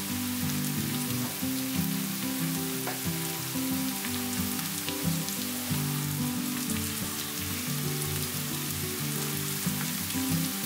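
Pork and vegetables sizzling in a frying pan under a fresh heap of shredded cabbage, a steady crackling hiss with small pops, with a wooden spatula starting to stir near the end. Soft background music with held notes plays underneath.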